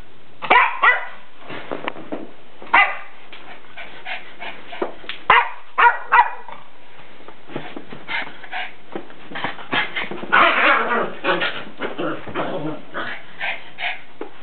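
Norwich terrier barking in short, scattered barks with some yips while playing with a ball, with a busier run of barking about ten seconds in.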